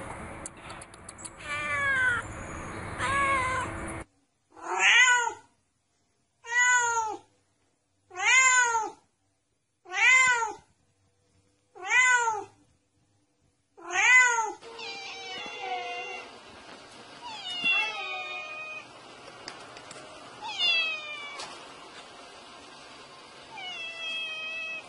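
Domestic cat meowing over and over. First come a few meows, then six separate meows, each about a second long, evenly spaced with silence between them, then more meows over a faint hiss.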